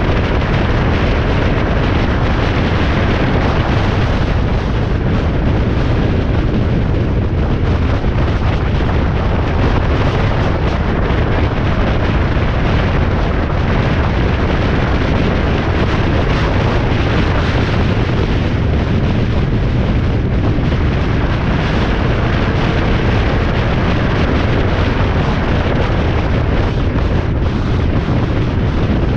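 Loud, steady rush of wind and road noise from a vehicle travelling at highway speed, with wind buffeting the microphone.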